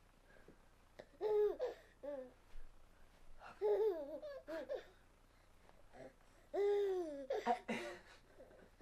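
An eight-and-a-half-month-old baby laughing and babbling in several high-pitched bursts with short quiet gaps between them. The longest and loudest burst comes near the end.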